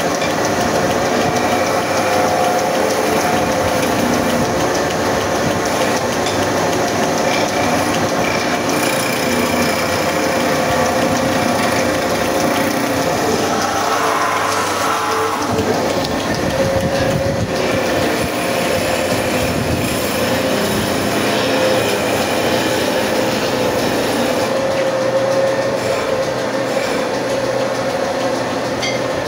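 Wood lathe running steadily with a constant hum, a hand chisel cutting into the spinning wooden spindle.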